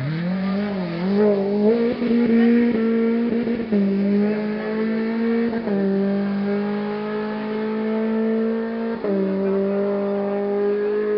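Rally car engine accelerating hard out of a corner and away. The pitch climbs in each gear and drops sharply at upshifts about 4, 6 and 9 seconds in, growing fainter as the car goes up the hill.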